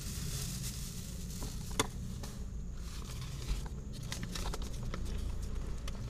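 Light clicks and rustles of a kitten's paws moving on a paper-lined floor, growing more frequent in the second half, over a low steady hum; one sharp click about two seconds in.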